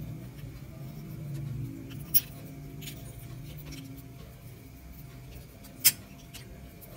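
Two sharp clicks, with a few fainter ticks, from handling a car AC blower switch, resistor and test leads on a bench. Faint low background music runs underneath.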